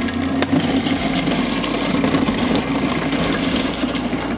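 Breville Sous Chef 16 Pro food processor motor running steadily as its adjustable slicing disc cuts chunks of cheese, with a few sharp clicks of pieces hitting the bowl. The motor cuts off near the end.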